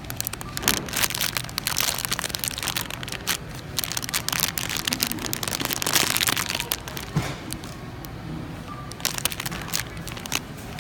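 Plastic candy packaging crinkling and crackling as it is handled, dense from about half a second in and thinning out after about eight seconds.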